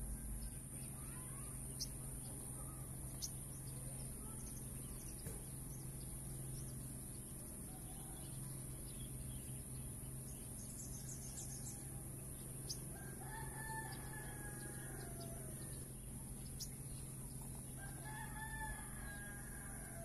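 A rooster crows twice, each crow about two seconds long, over a steady high-pitched hiss, with a few short faint high chirps or ticks.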